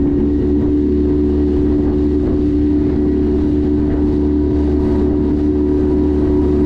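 Outboard motor running at a steady cruising speed as the boat travels across the lake, a steady engine drone over a low rush of wind and water.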